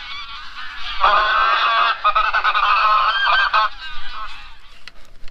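A large flock of wild geese honking overhead in a dense, overlapping chorus, swelling about a second in and thinning out near the end.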